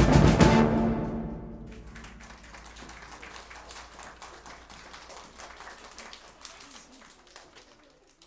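A brass and percussion ensemble ends a piece on a loud final hit with timpani, which rings out for about a second and a half. Then children clap, thinning out and stopping near the end.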